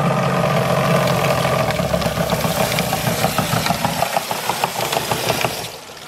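3D-printed Pelton turbine and the motor it turns through a toothed pulley as a generator, spinning down after being switched off: a steady mechanical hum over water spray gives way to rapid, regular ticking and knocking, which cuts off suddenly about five and a half seconds in.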